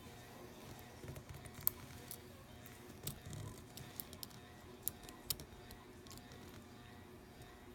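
Lock pick and tension wrench working in the keyway of a Master Lock No. 3 padlock: faint scraping with scattered sharp, irregular metal clicks as the pins are raked.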